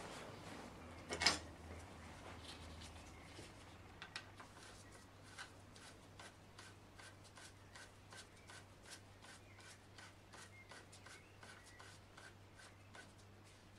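Hex key turning a greased pad pin into a Yamaha FZ6 rear brake caliper: a click about a second in, then a run of faint, evenly spaced ticks, about two a second, as the pin is screwed in.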